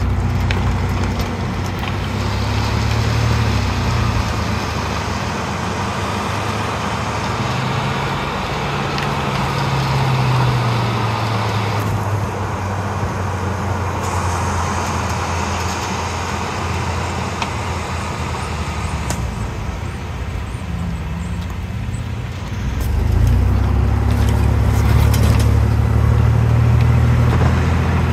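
Cars driving on a road: engine and road noise from a Subaru WRX and the camera car close to it, with a heavy low rumble. An engine note rises about eight seconds in, and the rumble swells again near the end.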